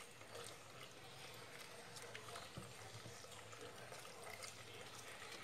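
Faint trickle of water poured from a plastic jug into a steel bowl of flour while a spoon stirs the batter, with a few light taps.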